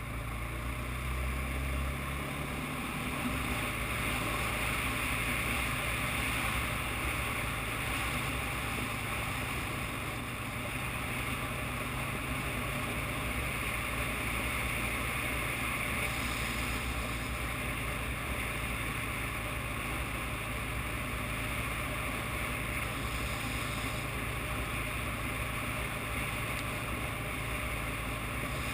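ATV engine running steadily under way on a dirt trail, a continuous drone with no big changes in speed.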